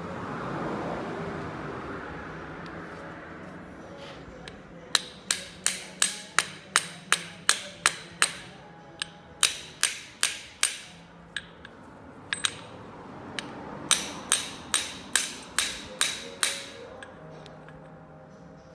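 Several runs of sharp metal-on-metal knocks, about three a second, each with a short ring. A Volkswagen manual transmission's gear shaft is being knocked to free the third-speed gear and synchronizer, which are stuck on it.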